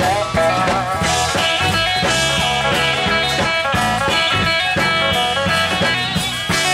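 A sacred steel band playing live: steel guitar with sliding notes over electric lead guitar, electric bass and a drum kit.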